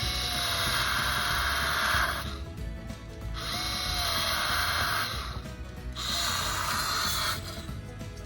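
A handheld power tool run in three bursts with short pauses between them, the first the longest, each a hissing whine, over background music.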